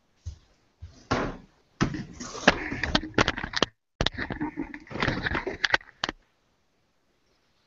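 Rustling and knocking close to a microphone in two dense bursts full of sharp clicks, each cutting off abruptly.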